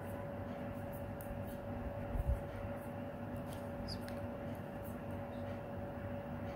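Knitting needles clicking and tapping faintly as stitches are purled, over a steady hum. A soft low thump about two seconds in is the loudest sound.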